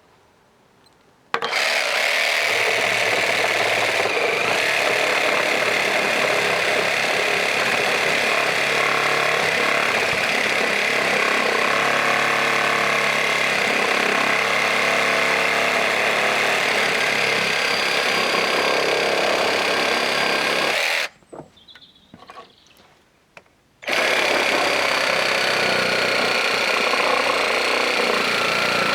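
Cordless reciprocating saw running and cutting through a spruce branch. It starts about a second in, stops about 21 seconds in, and starts again about three seconds later.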